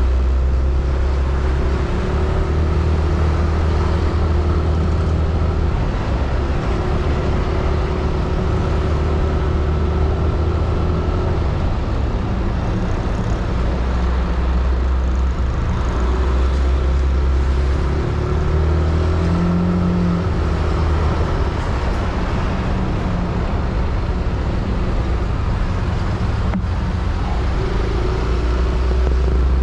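Yamaha Aerox scooter's single-cylinder engine running under way, its steady hum shifting in pitch several times as the scooter speeds up and slows, with road and traffic noise around it.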